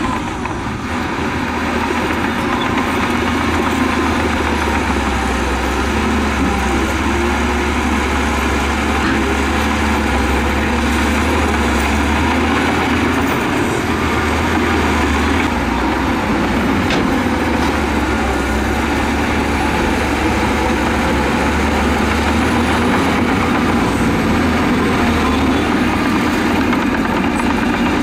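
Heavy earthmoving machine's diesel engine running steadily, a loud continuous low drone that holds without a break.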